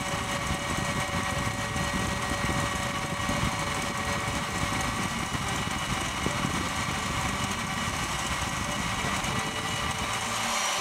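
KitchenAid stand mixer running steadily at speed, its wire whisk beating stiff egg whites and sugar into meringue. An even motor hum with a few steady tones over the whirr of the whisk in the bowl.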